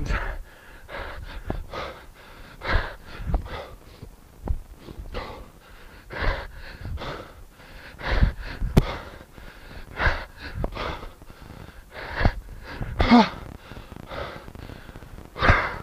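A man breathing hard through a set of kettlebell push presses: sharp, forceful exhalations about every one to two seconds, one per rep, with a short voiced grunt about 13 seconds in.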